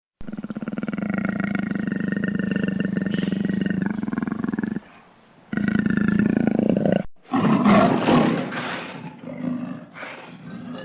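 Leopard calling: a long, rasping drawn-out call of nearly five seconds, then a shorter one, then rougher growling roars from a different recording that trail off near the end.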